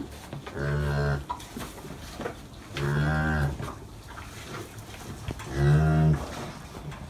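Cow mooing three times, short low moos a couple of seconds apart, the last the loudest: a mother cow calling to her newborn calf as she licks it.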